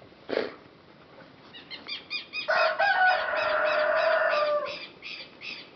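A rooster crowing once, a call lasting about two seconds that starts about two and a half seconds in. Under it, a bird's short high chirps repeat about four times a second.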